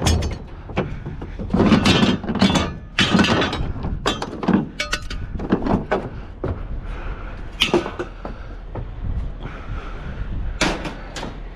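Scrap metal being handled and dropped onto a pile: a series of irregular clanks and thuds, some pieces briefly ringing.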